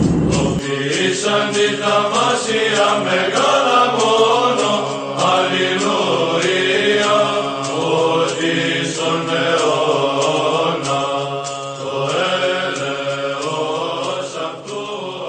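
Slow vocal chant sung over a steady held drone note, fading out near the end. A loud low rumble under it cuts off about half a second in.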